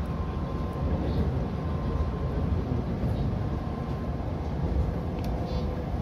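Odakyu 2000 series electric commuter train running into a station, heard from inside the driver's cab: a steady low rumble of wheels on rails, with a faint whine in the first few seconds and a low steady tone appearing near the end.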